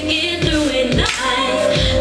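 A woman singing into a microphone, holding and sliding between notes, over a steady drum beat with cymbals.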